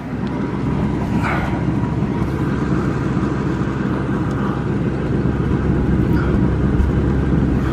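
Ford Excursion's 6.8-litre V10 idling, heard close at the tailpipe: a steady exhaust rumble with an uneven, spitting and sputtering note. The mechanic puts the roughness down to the valves and to an idle air control valve that seems to want to shut itself off.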